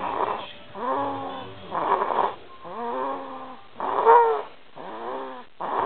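Loud snoring: short rasping snores alternate with drawn-out, pitched moaning tones that fall in pitch, roughly one every second or two. The loudest tone comes about four seconds in, rising and then falling.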